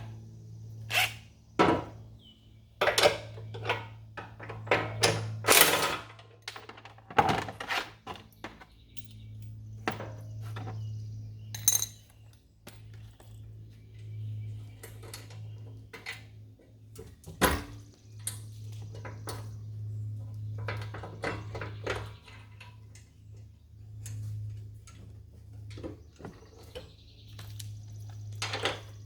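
Irregular metallic clanks, knocks and thunks of hand tools, bolts and metal parts being handled while the golf cart's rear seat platform is unbolted, over a steady low hum.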